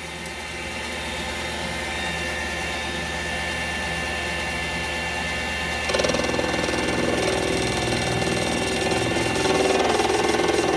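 Metal lathe spindle running at about 1,200 RPM with a steady hum. About six seconds in, the tool bites into the bar for a heavy facing cut and a louder, rougher cutting sound joins in, chattering a little at first.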